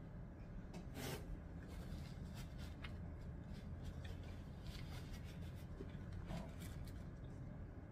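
Faint eating and handling sounds: small mouth clicks while chewing, and a paper napkin rustling as it wipes the mouth, over a low steady hum.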